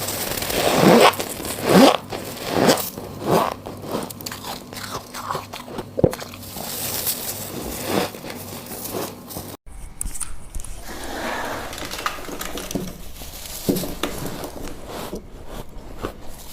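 White ice being bitten and chewed close to the microphone: a run of loud, sharp crunches in the first few seconds, then quieter crunching as the pieces are chewed, with a brief break about ten seconds in.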